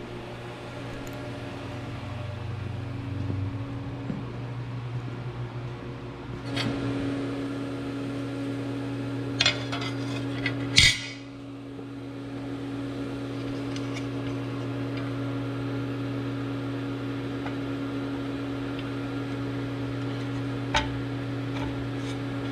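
Aluminium plates clanking as they are handled and set down on a steel workbench: a few sharp metal clanks, the loudest about eleven seconds in, over a steady machine hum.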